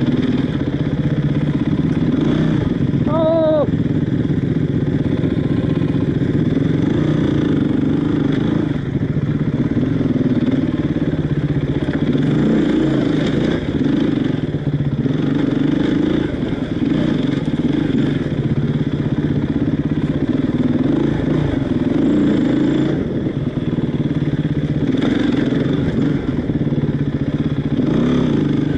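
Enduro dirt bike engine running at low revs while the bike crawls over a rocky riverbed, its pitch rising and falling a little with the throttle. A brief high-pitched note sounds about three seconds in.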